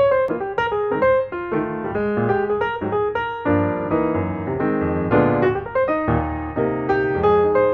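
Background piano music, a brisk run of notes and chords.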